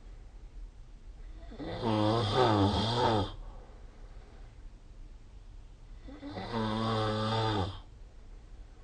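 A person snoring in sleep: two snores about four and a half seconds apart, each lasting about a second and a half, with a pitch that wavers.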